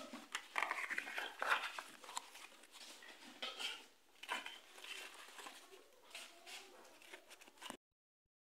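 Dry corn husks rustling and tearing as fresh ears of corn are husked by hand, in irregular crackly bursts. The sound cuts off suddenly near the end.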